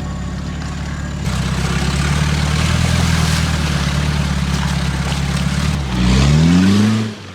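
Off-road vehicle's engine running under load, getting louder about a second in, then revving up with a rising pitch near the end before dropping away sharply.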